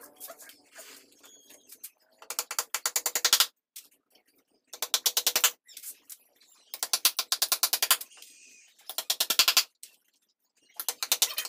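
A power tool driving fasteners into the MDF panels of a speaker box: five bursts of rapid clicking, each about a second long, with short pauses between.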